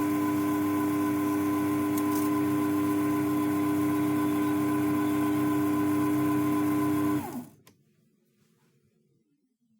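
Small electric lathe motor running at a steady speed with a constant hum, then switched off about seven seconds in, its pitch falling quickly as it winds down to a stop.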